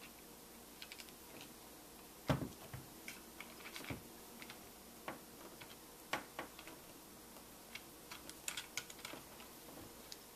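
Faint irregular clicks and taps of a small steel eye bolt, nut and washers being handled and turned in a camera's tripod mount as the nut is tightened down. One louder knock comes about two seconds in, and a quick run of clicks comes near the end.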